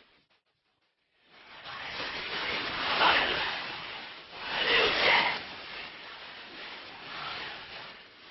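Rushing wind noise that swells and fades in three big surges, starting after a second of silence.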